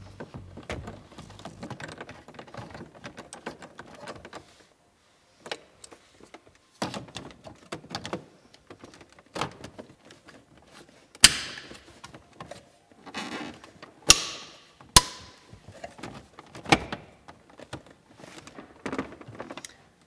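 Plastic interior trim of a Volvo centre console being handled and pressed back into place around the gear lever, with scattered clicks and knocks and several sharp snaps as the frame's clips seat, the loudest a little past halfway.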